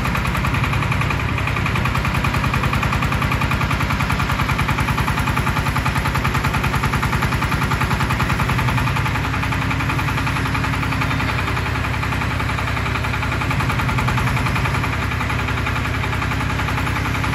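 Engine of an HF150W trailer-mounted water well drilling rig running steadily under hydraulic load while the drill mast is lowered, with a fast, even pulse. The engine note shifts slightly about 9 seconds in and again near 15 seconds.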